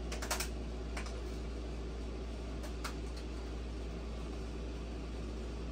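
A few sharp clicks and snips of clippers cutting the plastic shipping straps off a 3D printer's print head: a quick cluster at the start, one about a second in and two close together near the middle, over a steady low hum.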